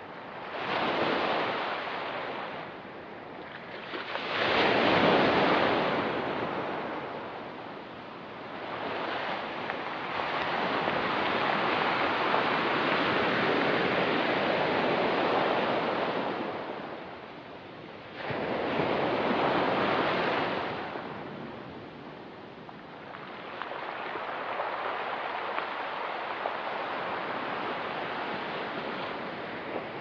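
Ocean surf breaking and washing on the shore, swelling and fading in about five surges. A long, sustained wash runs from about ten to sixteen seconds in.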